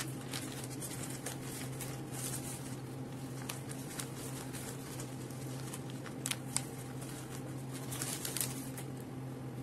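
Sheets of bouquet wrapping paper rustling and crinkling in intermittent short bursts as they are handled, laid flat and smoothed. A steady low hum runs underneath.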